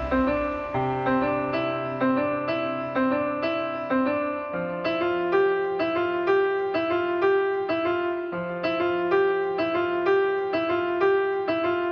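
Background music: a keyboard melody of evenly spaced, piano-like notes, about two to three a second, over held bass notes.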